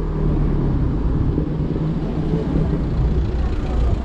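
Steady low rumble of road and traffic noise heard while riding an Okai ES400A electric scooter, mostly the scooter's tyres and vibration on the street mixed with passing cars.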